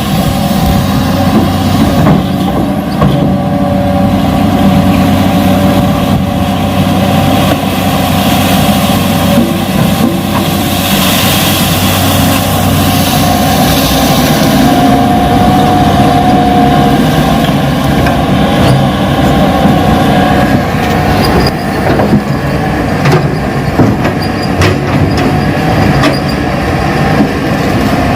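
Radio-controlled Hitachi excavator model running: a steady engine-like drone with a motor whine that swells around the middle, and scattered clicks and knocks in the later part as it works the soil.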